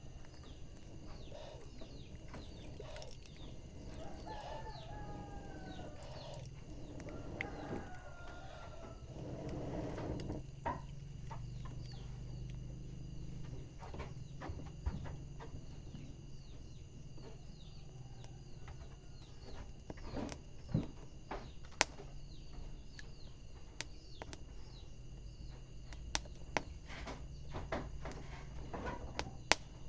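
Wood fire crackling, with scattered sharp pops throughout and the loudest ones in the second half, over a steady low rumble. A bird calls several times in the first third, in bending, pitched calls.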